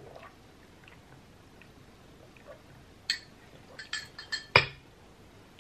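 A drinking glass with a metal straw in it clinking. After a quiet stretch come a sharp click, a quick run of short ringing clinks, and then one louder knock as the glass is set down.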